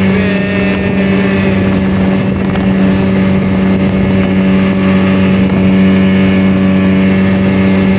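Speedboat engine running at a steady cruising speed, an even drone over the rush of water along the hull.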